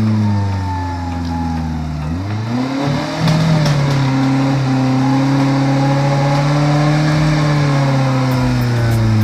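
Small off-road 4x4's engine working under load in deep mud. It dips, then revs up sharply about two seconds in and is held at high revs, easing off slightly near the end.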